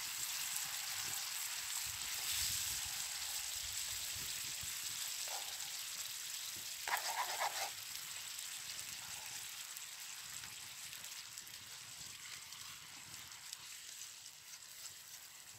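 Chicken in tomato sauce sizzling and bubbling in a wide steel pan over a wood campfire, just after the stock went in; the hiss slowly dies down. A brief call-like sound comes about seven seconds in.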